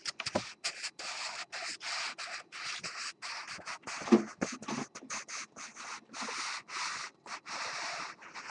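Sheet of printer paper rustling and rubbing as it is held close to the microphone and slid along by hand, in a rapid run of short scratchy rustles, about three a second.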